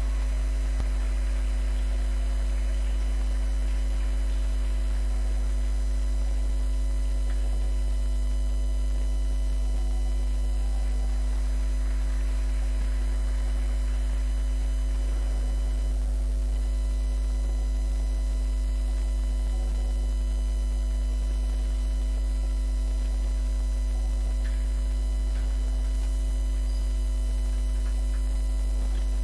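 Steady low electrical hum, mains hum in the recording, with a set of faint steady tones above it and no change throughout.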